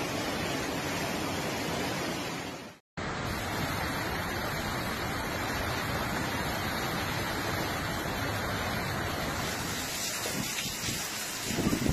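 Floodwater rushing in a steady torrent. It cuts out briefly about three seconds in, and a few low thumps come near the end.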